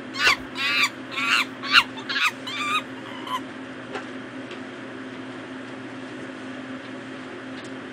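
A quick run of short, high, bird-like calls, each falling in pitch: about six in under three seconds, then one fainter call. After that only a steady low hum is heard.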